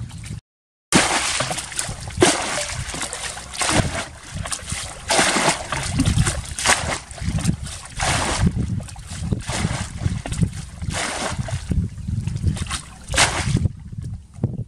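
Muddy water being bailed out of a shallow pool with a plastic bucket: repeated scooping splashes and sloshing, and water pouring out of the bucket onto the bank.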